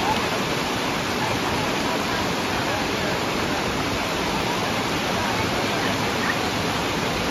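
Steady rush of river water pouring over the low rock ledge of Ocqueoc Falls' lower falls, an even, unbroken roar of white water.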